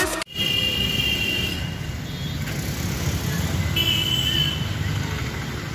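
Background music cuts off abruptly at the start, leaving street traffic noise: a steady low rumble of road vehicles with two short high-pitched beeps, one near the start and a shorter one about four seconds in.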